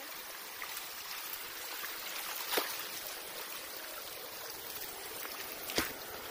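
Shallow jungle stream trickling over rocks, a steady rush of water, with two short sharp knocks about two and a half seconds and nearly six seconds in.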